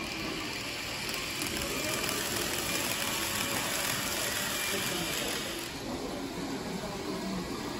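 N-gauge model train running on a layout track, a steady small mechanical clatter of wheels and motor.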